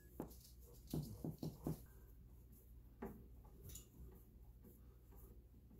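Faint clicks and scrapes of a hand screwdriver working a screw into a dryer's sheet-metal front frame, with a cluster of small taps about a second in and another near three seconds.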